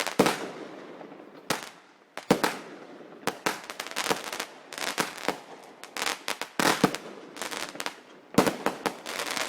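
Fireworks going off: a rapid, irregular run of sharp bangs with crackling in between.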